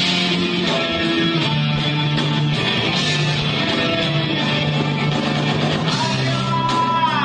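Heavy metal band playing live: distorted electric guitars over bass guitar and drums. Near the end a held high note wavers and then slides down.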